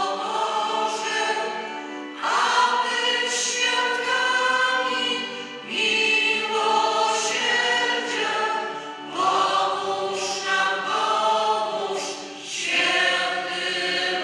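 A group of voices singing a hymn together, in phrases that begin about every three and a half seconds.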